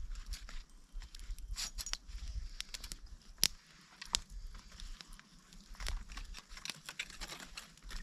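Small wood campfire crackling, with rustling and light knocks as a wire grill basket and sticks are handled over it; two sharp snaps come a little under a second apart around the middle.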